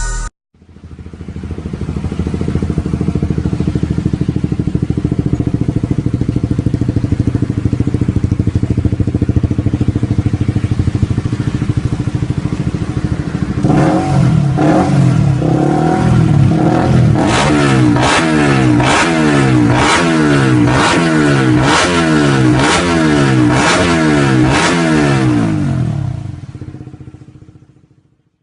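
Honda CBR150's single-cylinder engine, tuned with a ported and polished head and a Juken BRT ECU, idling steadily and then revved in quick throttle blips about once a second for the second half, before fading out.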